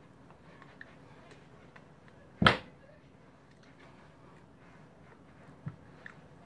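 One sharp slap of a hand about two and a half seconds in, with faint clicks and rustling from moving hands and sleeves around it and a smaller knock near the end.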